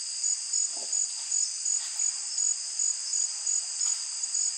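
A night-time chorus of insects: a steady high-pitched trilling, with one caller pulsing evenly about two to three times a second.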